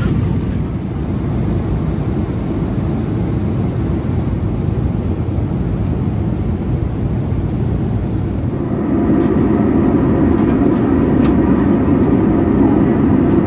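Steady cabin noise of a Boeing 777-300 in cruise: a low rumble of engine and airflow. It grows louder and fuller about two-thirds of the way through.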